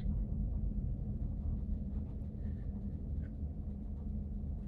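Steady low drone of a ship's engine and machinery heard on board the vessel, with no distinct wave crashes.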